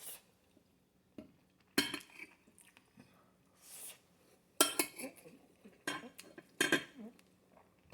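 Cutlery clinking and knocking against dishware during a meal: irregular sharp strikes, a cluster of several about halfway through, then a few more near the end.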